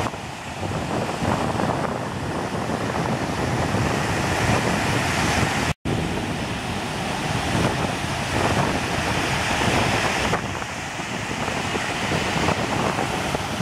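Ocean surf breaking, with strong wind buffeting the microphone. The sound cuts out for a split second a little before six seconds in.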